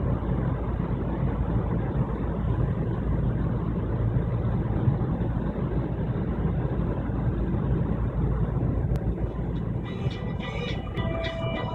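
Steady low rumble of a car driving at speed, its road and engine noise running evenly. About ten seconds in, ringing tones and sharp clicks come in over it.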